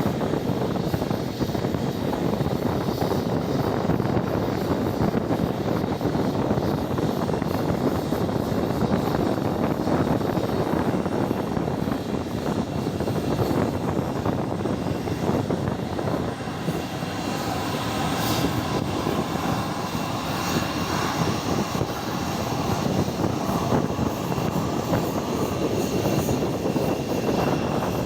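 Jet airliner engines running, a steady rushing noise; about two thirds of the way in, a thin high whine of turbine tones comes in over it.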